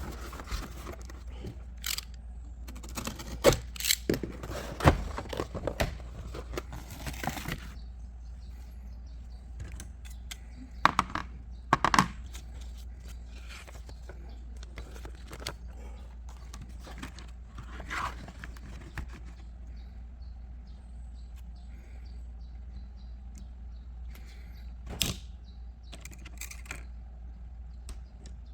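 Handling noises: a run of clicks and rustles over the first several seconds, two sharper knocks about eleven and twelve seconds in, a rustle later, and one more sharp click near the end, over a steady low hum.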